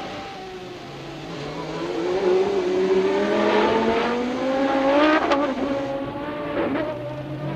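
1995 Formula One car engine at full throttle, its pitch climbing steadily for several seconds. The pitch drops sharply about five seconds in, then it dips again near the end.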